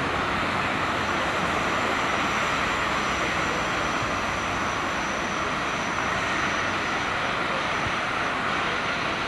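Vossloh G2000 diesel locomotive running steadily as it pulls slowly past with a second diesel locomotive coupled behind.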